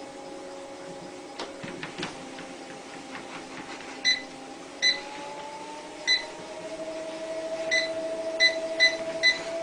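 Home treadmill's motor and belt running with a steady whine that rises in pitch as the speed goes up, while the console gives about seven short beeps as its speed buttons are pressed. A few light knocks come about two seconds in.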